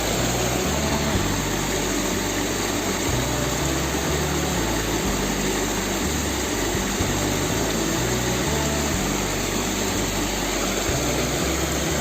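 Steady rush of flowing river water, with low background music notes.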